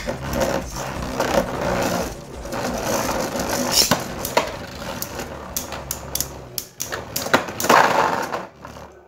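Beyblade spinning tops whirring and clattering in a plastic stadium, with many sharp clicks as they strike each other and the walls. The noise falls away just before the end.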